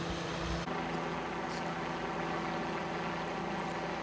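Steady outdoor background with a low engine hum, as from vehicles running nearby, and a faint steady high tone; the mix shifts abruptly about two-thirds of a second in.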